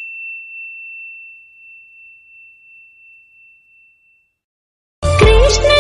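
The ringing tail of a single high, bell-like ding, one clear tone that wavers as it fades away over about four seconds. After a second of silence, music starts near the end.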